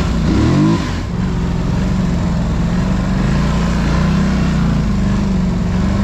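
Polaris Scrambler XP 1000 ATV's parallel-twin engine running under way, heard from on the machine. About half a second in, the engine briefly rises and falls in pitch, then holds a steady note.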